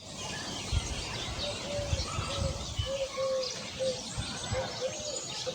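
Birds calling and chirping, with a short arched call repeated two or three times a second among scattered higher chirps, and low thumps underneath.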